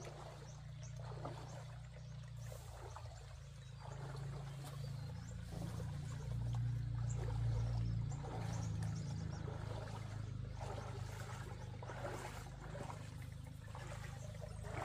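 Shallow stream running and trickling, with irregular splashes of a person wading through the water, over a steady low rumble.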